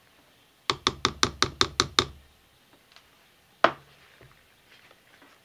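A stick blender rapped against the crock pot, seven quick knocks at about five a second, then one more knock about a second and a half later. This is the usual tap to shake soap batter off the blender.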